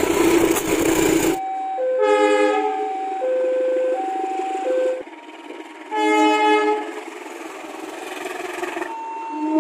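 A string of train air horn blasts cut together. A horn chord over the rumble of a passing train cuts off about a second in; then a two-note horn alternates between a higher and a lower tone for about three seconds, briefly overlaid by a chord horn; after a short pause a chord horn gives a brief blast about six seconds in, and another horn starts near the end.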